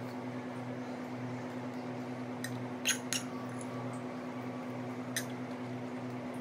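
Steady background hum with a few light clicks: a quick pair about three seconds in and one more near the end, typical of a utensil tapping a bowl while eating ramen.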